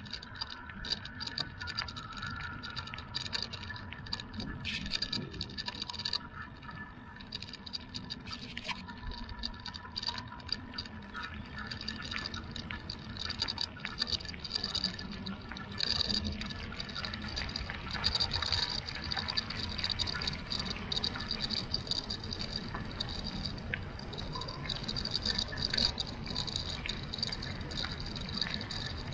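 Bicycle tyres rolling fast over a gravel forest track: a steady crunching hiss with many small gravel clicks and rattles, and a thin high tone that grows stronger about halfway through.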